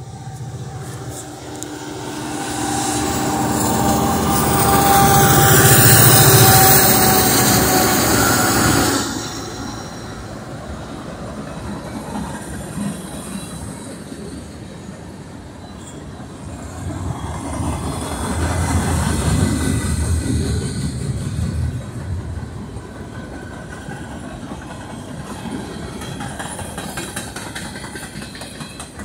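A diesel-hauled freight train passing close by. The locomotives' engines build to their loudest and then drop away sharply, and the freight cars follow with steady wheel-and-rail rolling noise that swells again for a few seconds past the middle.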